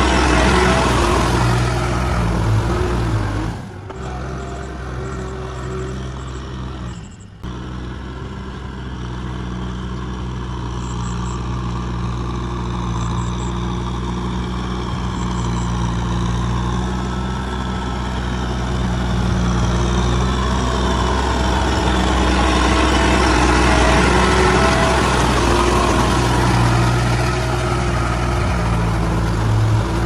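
Kubota tractor's diesel engine running steadily as it drives and tills through a flooded, muddy rice paddy. The sound dips briefly twice in the first few seconds.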